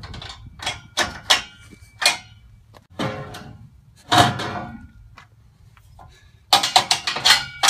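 Steel ramps and a locking pin clanking in their steel storage rack: a series of separate sharp metal knocks, some ringing briefly, then a quick rattle of clicks near the end.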